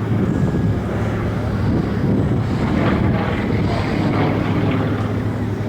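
A Yakovlev aerobatic plane's nine-cylinder radial engine running at a steady speed, with wind noise on the microphone.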